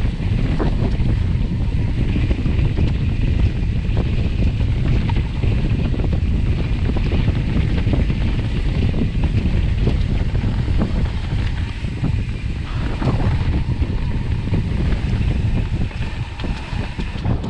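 Mountain bike rolling fast down a dirt singletrack: steady wind buffeting on the microphone over tyre rumble, with many small knocks and rattles from the bike over the rough ground.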